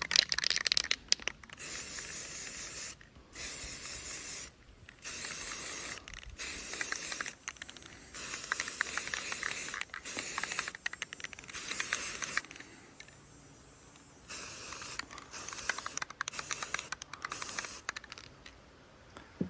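Aerosol can of tan spray paint hissing in a string of short bursts, each a second or two long, as a light coat is dusted onto a rifle, with a pause of about two seconds between bursts late on.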